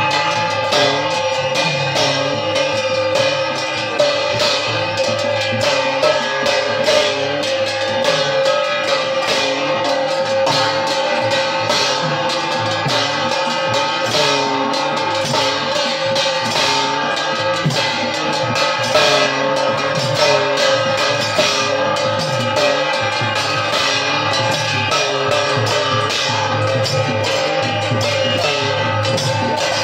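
Music with busy drumming and percussion over a steady held tone.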